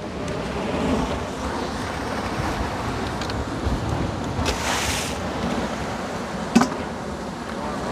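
Sea washing against rocks, with wind on the microphone; one wave surges up about halfway through. A single sharp click near the end.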